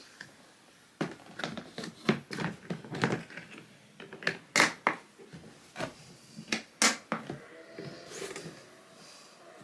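A run of sharp, irregular clicks and knocks from hard objects being handled, loudest around the middle, followed near the end by a brief faint squeak-like tone.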